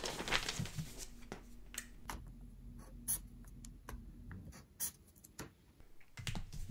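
Marker pen scratching on paper as a checkbox is ticked, in a few short strokes, with some paper handling.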